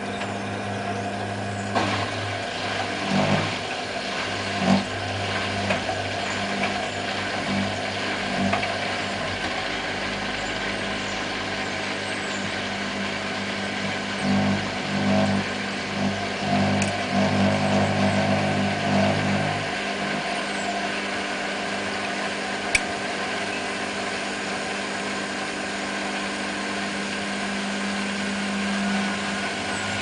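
Candy Nova CN146 front-loading washing machine running in its final rinse: a steady electric hum, with irregular surges and knocks from the turning drum for most of the first two thirds. The lower hum then drops away, and there is a single sharp click about two thirds of the way through.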